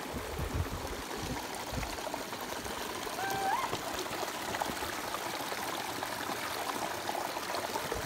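Stream water running over rocks at a waterfall, a steady rush. A short rising call cuts through it about three seconds in.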